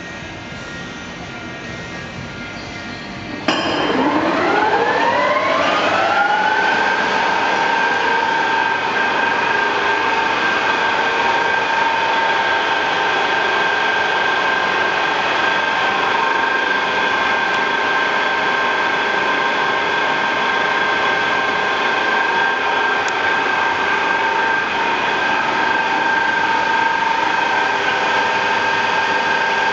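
MEXPOL TUB CNC lathe humming steadily with power on. About three and a half seconds in, its spindle drive starts with a sudden jump in level and a rising whine that levels off after about three seconds, then runs steadily at speed.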